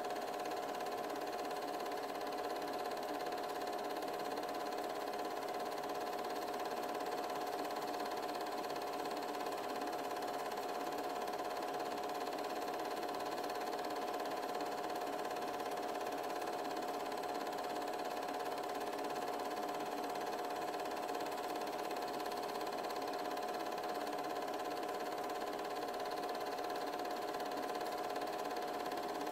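8mm film projector running steadily: a constant mechanical hum with a steady whine, unchanging throughout.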